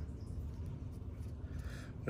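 Low, steady background hum with no distinct event.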